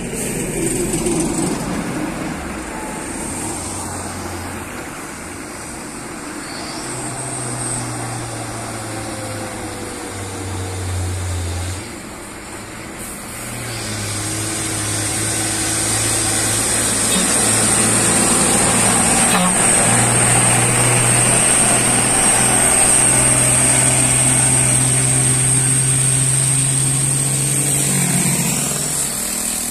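A loaded Hino 500 truck's diesel engine droning steadily at low revs as it approaches and passes, growing louder through the second half. A steady high-pitched whine sits above it from about halfway through.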